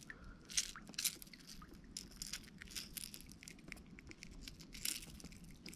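Faint, irregular clicking and rustling as a small snapper is handled and a rattling lure is unhooked from its mouth.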